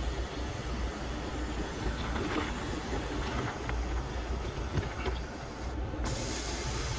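Brazing torch flame burning on a copper refrigerant line set: a steady hiss over a low rumble, with a few small clicks. The hiss cuts out briefly and comes back brighter near the end.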